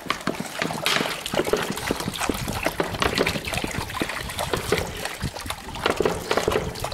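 Dogs lapping water from a clear plastic bowl, a rapid, irregular run of wet clicks and splashes.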